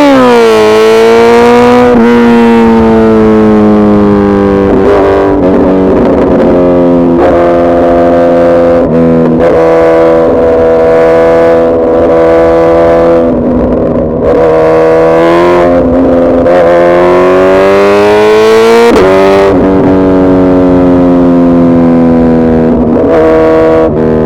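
Suzuki Hayabusa Gen3's 1340 cc inline-four engine running loud under way, its pitch holding fairly steady and gliding slowly. The revs climb and drop sharply near the start and again near the end, like upshifts.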